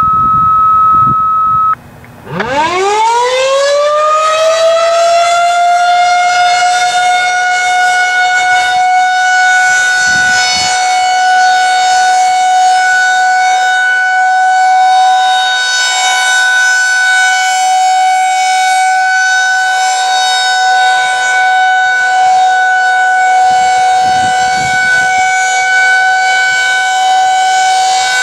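A steady beep tone for about two seconds, then a Federal Signal 2001-SRNB outdoor warning siren winds up from low to high pitch within about three seconds and holds a steady, loud tone: the siren's alert signal during a test.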